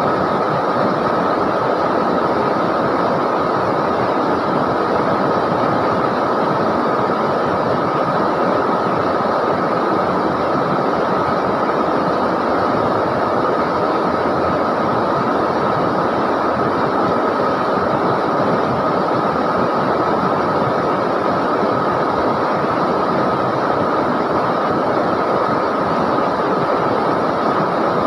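River water rushing steadily, an even wash of noise that holds unchanged throughout.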